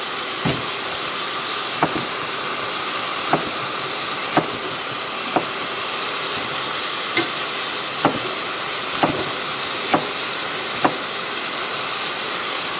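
Top sirloin sizzling as it browns in a stew pot, a steady frying hiss, with sharp knocks about once a second.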